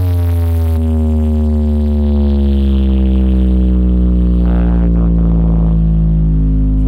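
Loud carnival sound system's subwoofers playing a long, deep bass tone that slowly falls in pitch, part of the electronic track used for the sound check.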